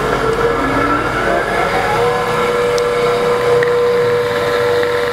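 The stepper motors of a fused-clapton coil-winding machine running, giving a steady whine of several tones, some of which glide in pitch. The whine cuts off suddenly as the machine stops at the very end.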